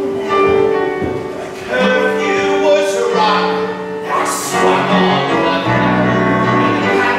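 A man singing a musical-theatre number, holding long notes over an instrumental accompaniment.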